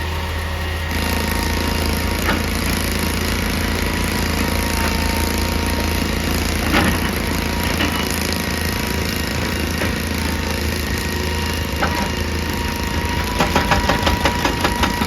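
Excavator's diesel engine running steadily under load, with a few separate knocks of rock and, near the end, a quick run of hammering strikes.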